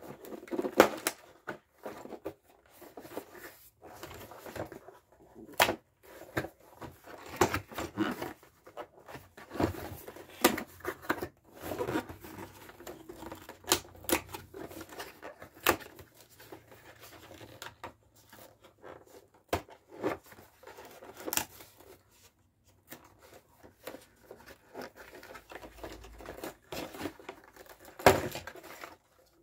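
A cardboard carton of Kinder Joy eggs being torn open and handled: irregular tearing and crinkling with many short sharp clicks and taps.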